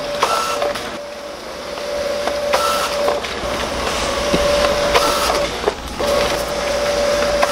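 HP PageWide Pro 477 high-speed inkjet printer running a multi-page print job: a steady mechanical hum, with a rush of paper-feed noise and a short high tone about every two and a half seconds as each sheet goes through.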